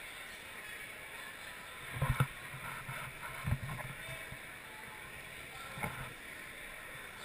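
Background chatter of spectators in a gym, with a few dull thumps: two close together about two seconds in, another a second and a half later, and a fainter one after that.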